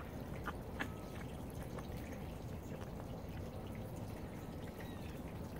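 White-tailed buck chewing a mouthful of apple close by, with scattered small clicks of wet crunching and smacking over a low, steady background.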